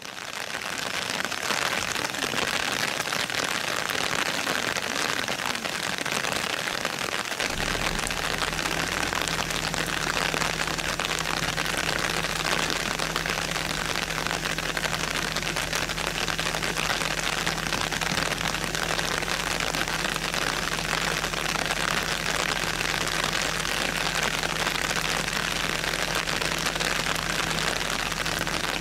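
Heavy rain falling steadily. A steady low hum comes in about seven seconds in and holds on underneath.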